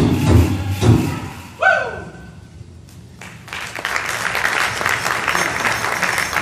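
Drum-beat music with a steady pulse ends with a last sharp beat about a second and a half in. After a short lull, the audience applauds.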